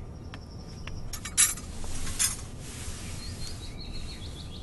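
Outdoor ambience: a thin high whistle in the first second and a run of short, quick bird chirps near the end, with two brief rustling noises about a second and two seconds in, the loudest sounds here.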